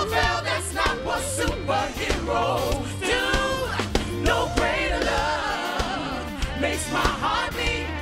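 Gospel vocal group singing together, several voices at once, over a band with a steady bass and drum beat.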